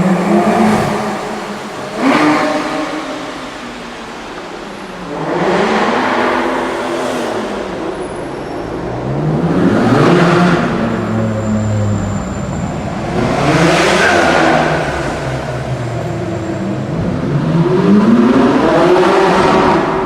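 Supercar engines accelerating hard one after another, each rising in pitch and then falling away, about five loud passes roughly four seconds apart.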